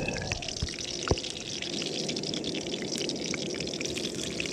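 Hot cooking oil bubbling and crackling around a whole pricked lime in a wok, a steady stream of small pops as the lime's moisture boils out.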